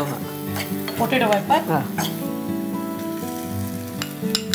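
Chopped onion, garlic and green chilli frying in oil in a kadai, sizzling while a metal ladle stirs them, with a couple of sharp clicks near the end.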